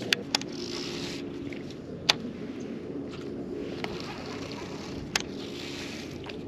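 Electric trolling motor humming steadily at the boat's bow, with a few isolated sharp clicks spaced a second or more apart.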